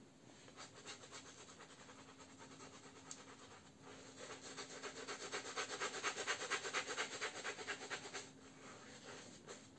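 Synthetic shaving brush working thick, creamy shaving-soap lather over a face: quick, rhythmic swishing and rubbing strokes. They are faint at first, grow louder from about four seconds in, and die down near the end.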